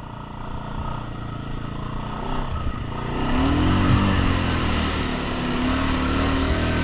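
Suzuki ATV engine working through a mud hole, its revs climbing and the engine getting louder about three seconds in, then held.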